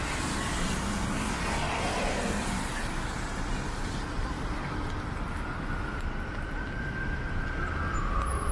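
City traffic on a rain-wet street: cars driving past with their tyres hissing on the wet pavement, one passing close in the first couple of seconds with its sound falling in pitch.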